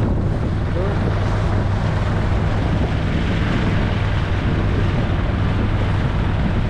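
Small passenger boat's engine running steadily under way, a constant low hum, with the rush of wind over the microphone.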